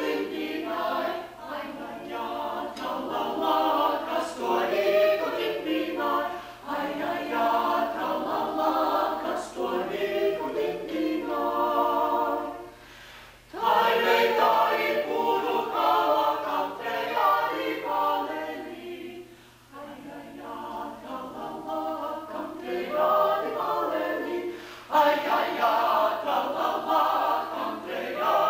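Small mixed ensemble of men's and women's voices singing a cappella in harmony, in phrases broken by short pauses, the clearest about halfway through.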